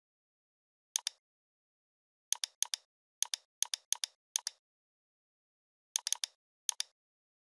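Computer mouse clicking, about ten sharp clicks at irregular intervals, each a quick press-and-release double tick, with dead silence in between.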